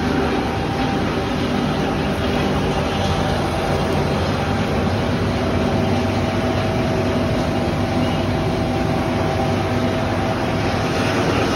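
Scrap wire granulator running steadily: a loud, even mechanical din with a constant hum, from the machine chopping scrap cable and separating the copper.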